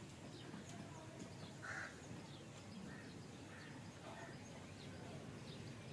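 Faint outdoor ambience with a few short, distant bird calls, the clearest about a second and a half in.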